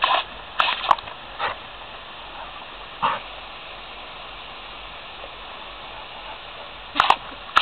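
A Labrador retriever barking, a handful of short barks spread over several seconds, over a steady hiss.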